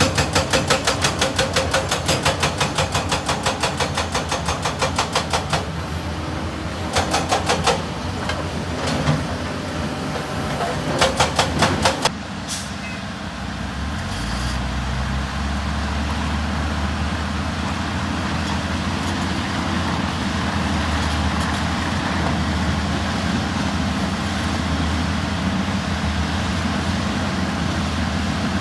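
Heavy excavator machinery at work: a rapid, regular mechanical clatter comes in three spells over the first twelve seconds. The clatter then gives way abruptly to a steady diesel engine, which picks up in pitch about two seconds later and runs on evenly.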